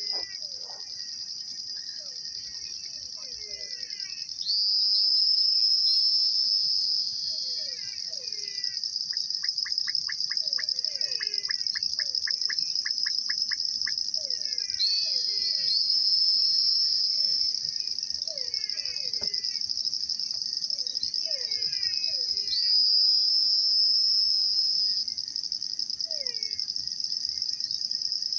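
Chorus of wild animals at a pond: a steady high-pitched insect trill that swells louder three times, over many short falling calls and, about a third of the way in, a run of rapid clicks at about four a second.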